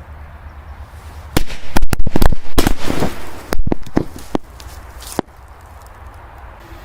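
Firecrackers exploding in a hole in the ground: a quick, irregular string of about a dozen sharp bangs, beginning about a second and a half in and stopping about five seconds in.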